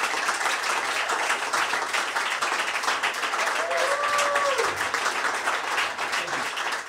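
A small audience applauding and clapping after a song, with a short cheer from one voice about four seconds in. The applause begins to fade near the end.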